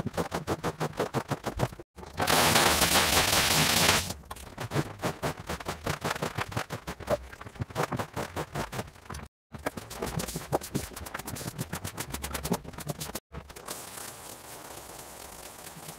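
Rug-cleaning tools working a wet rug in sped-up clips: rapid, rhythmic scraping strokes many times a second. About two seconds in comes a loud steady hiss for about two seconds, and a quieter steady hiss runs near the end. The clips change abruptly with brief silent cuts.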